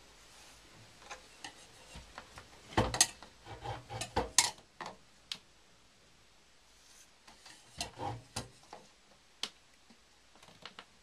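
A metal combination square clicking and knocking against a square white plastic downpipe as it is set and shifted around the pipe to mark a cut line, with light handling taps. The clicks come in two scattered clusters, the loudest knocks a few seconds in.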